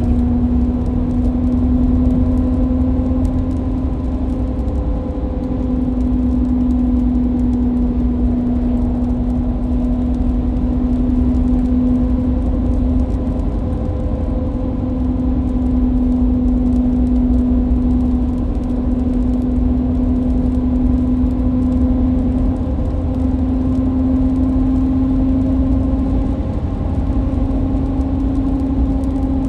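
Car interior noise while cruising at steady highway speed: a steady droning hum over a low road rumble.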